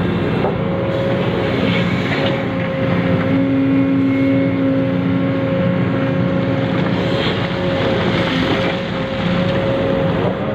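Small electric motor and plastic gears of a radio-controlled model truck or excavator running with a steady whine and gear rattle.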